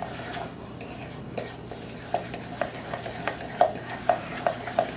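Crumbly crust mix and melted butter being stirred in a stainless steel mixing bowl: a steady scraping with light clinks of the utensil against the bowl, about two a second.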